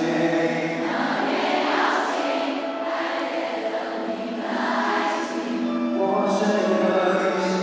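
Music of held choir-like voices, the chords swelling and fading slowly, with no drums or bass.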